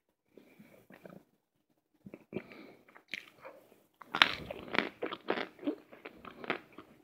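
Cornstarch chunks crunching as they are crushed. A few faint scattered crunches come first, then a quick run of sharp crunches from about four seconds in.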